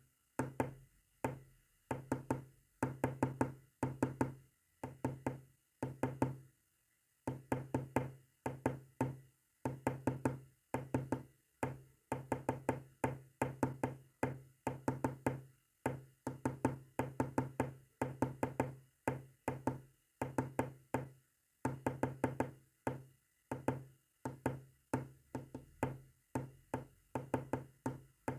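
Morse code being sent as runs of rapid clicks with a low buzz, in groups of varying length broken by short pauses, with one longer pause about six seconds in.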